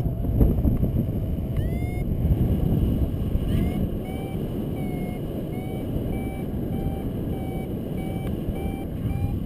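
Wind rushing over the microphone in flight, with a paragliding variometer beeping in a regular series of short beeps, most steadily in the second half. The vario's intermittent beeping is its climb tone, the sign of rising air.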